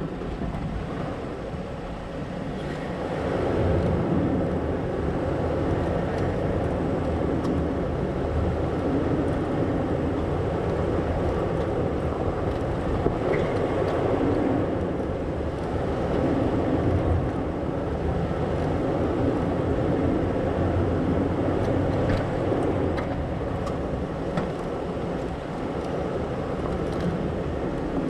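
Toyota 4Runner's engine running at crawling speed as the truck creeps along a rocky trail: a steady low hum under a rough noise that grows louder about three seconds in.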